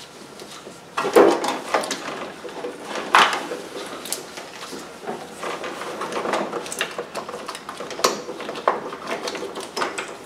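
Hard plastic and metal clattering and knocking as ignition coil packs are handled and pulled from the engine. The sharpest knocks come about a second in and again about three seconds in, with smaller rattles between.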